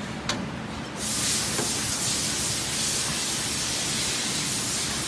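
Cosmetic tube filling machine: a sharp click, then about a second in a steady, loud hiss of air starts abruptly and holds.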